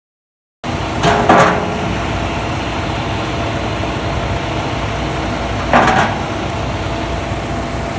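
A truck engine running steadily. Twice, about a second in and again near six seconds, a short louder noise rises above it.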